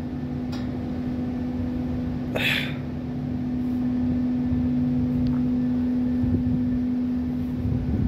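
Carrier 30XA air-cooled screw chiller running: a steady machine hum with a steady low tone over a low rumble, and a brief hiss about two and a half seconds in.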